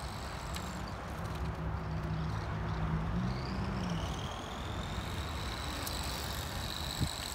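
The electric motor of a 1991 Bolink 1/12-scale pan car whines as the car drives. Its pitch slides up about three seconds in, then holds high and steady. A low hum sits under it in the first half, with wind rumble on the microphone.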